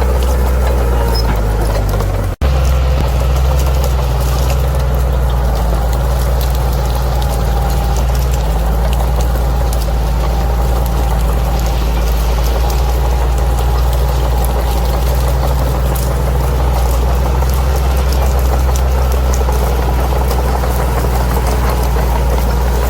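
Bulldozer diesel engine running steadily with a deep, even rumble and faint clatter over the top, cut by a brief drop-out about two seconds in.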